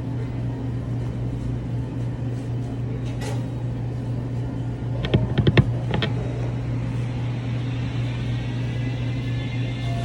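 Steady low hum of restaurant kitchen equipment running. A quick rattle of several sharp clicks about five seconds in is the loudest moment.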